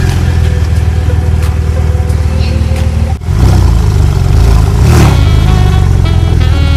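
Porsche 911 Turbo's twin-turbocharged flat-six running loud as the car accelerates away, with a brief drop about three seconds in. Music comes in faintly near the end.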